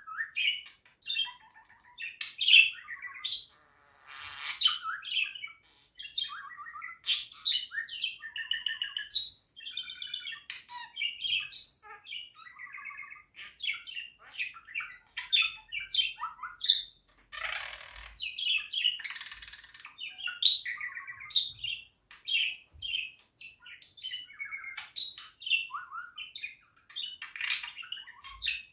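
Budgerigar warbling: a steady run of quick chirps and whistled notes with short pauses, broken twice by brief scratchy, buzzy passages.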